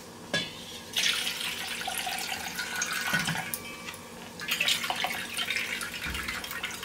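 Soaking water poured off soaked sago pearls from a plastic bowl into a stainless-steel pot, splashing in two spells, with a couple of light knocks.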